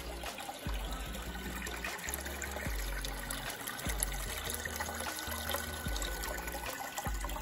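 Coolant pouring from a return hose into a bucket, splashing and trickling as it is circulated through the battery modules' cooling tubes in a coolant test. Low bass notes of background music step along underneath.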